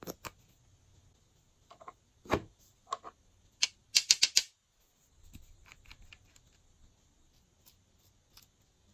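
Small nail-polish bottles with plastic duck-shaped caps clicking and tapping as they are handled. There are scattered single clicks and a duller knock, then a quick run of four or five sharp clicks about four seconds in, the loudest part.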